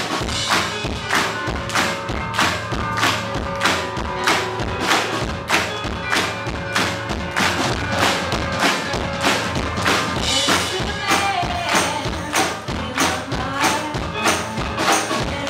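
Live band playing with drums, keyboard and electric guitar: a steady beat of about two strong drum strokes a second runs under the keyboard and guitar.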